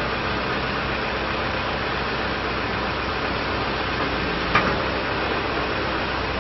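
John Deere 310SJ backhoe loader's diesel engine running steadily, with a single short click a little past halfway.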